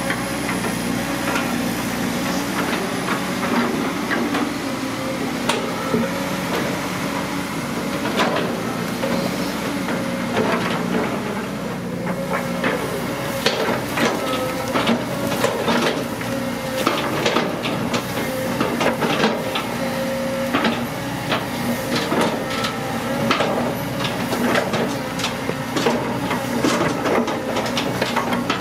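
CAT long-reach hydraulic excavator running as its boom lifts and swings, with a steady engine-and-hydraulic whine and a stream of sharp clanks and ticks that grows denser in the second half.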